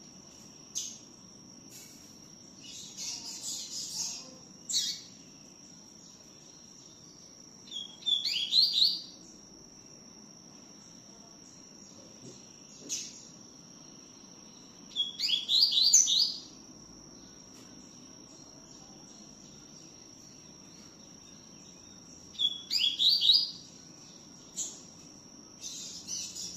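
Double-collared seedeater (coleiro) singing its 'tui-tiu' song: three loud phrases of quick sweeping notes about seven seconds apart, with single chirps and a short chatter between them.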